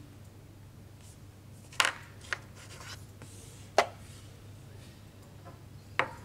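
Wooden chess pieces and a chess clock being played: four sharp knocks and clicks as pieces are set down on the board and the clock is pressed, with a light rustle of a hand moving between them.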